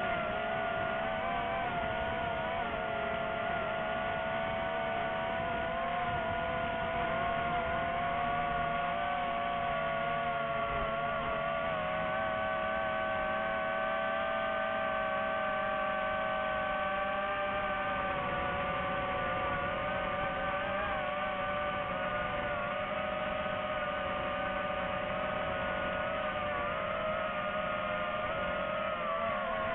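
DJI FPV drone's electric motors and propellers whining steadily in flight, the pitch drifting up and down slightly as the drone manoeuvres.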